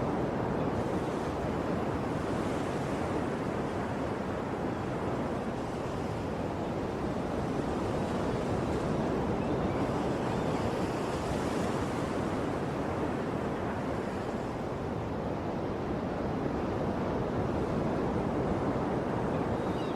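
Sea waves washing in as a steady rushing surf, swelling slightly about halfway through.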